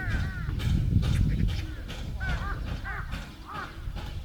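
Several crows cawing, short harsh calls coming in quick runs, over a low rumble that is loudest in the first second and a half.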